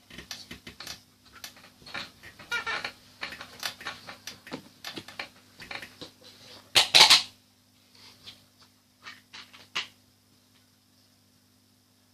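Bead-filled crunchy slime being squeezed and kneaded by hand, giving rapid irregular crackling and clicking pops, with one louder burst about seven seconds in; the clicks thin out toward the end.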